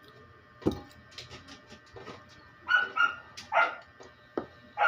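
A dog barking twice in short single barks, after a sharp knock about half a second in.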